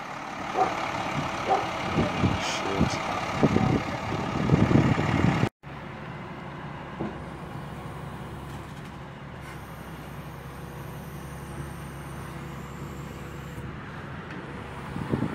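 Shingle delivery truck running, with a series of clanks and knocks over the engine for the first five seconds or so. After a sudden cut comes a steady, quieter engine drone while the truck's roof-loading conveyor boom is raised toward the roof.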